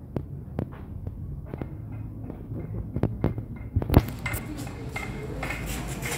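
A few sharp knocks of pots and utensils, then from about four seconds in a denser rustling and scraping as a wooden stick stirs a pot of malakwang paste.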